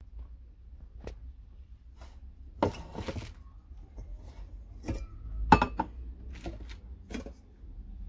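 Stainless steel coffee pots clinking and knocking against each other and the table as a nested set is taken apart and handled. Irregular sharp knocks, the loudest about five and a half seconds in.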